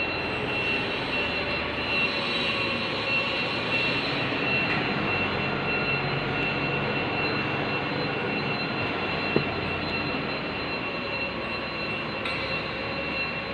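Machinery running steadily, an even engine-like noise with a thin, constant high whine over it and one small click about nine seconds in.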